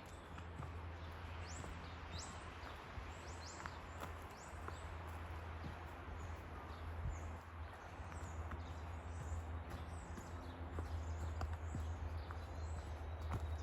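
Forest birds chirping, with many short, high rising notes repeated throughout, over a steady hiss and low rumble. A few light footsteps can be heard.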